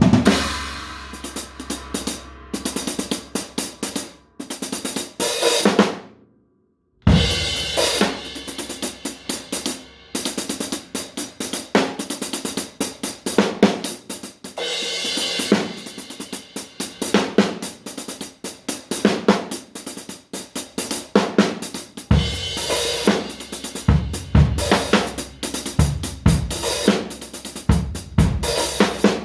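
Drum kit played freely: fast runs of snare and tom strokes over ringing cymbals and hi-hat. It cuts off for under a second about six seconds in, then starts again, and heavy bass drum hits come in near the end.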